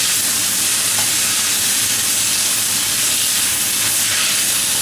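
Sliced red and green peppers and bamboo shoots sizzling steadily in a smoking-hot wok as they are stir-fried with chopsticks.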